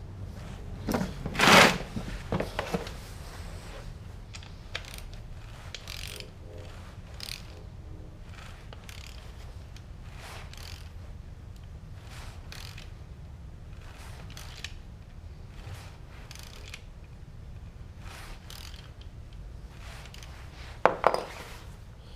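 Yamaha R6 inline-four sport bike engine running steadily at low revs, with a sharp knock about every couple of seconds and a louder clatter near the start and near the end. The uploader traces the knock to a bolt-on part, since it stops when that part is taken off.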